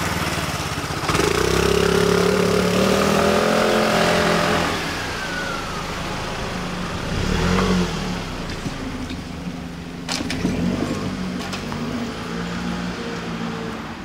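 Motor traffic at a railway level crossing: a vehicle's engine runs loud with a slightly rising note from about a second in, then a car passes close by around the middle.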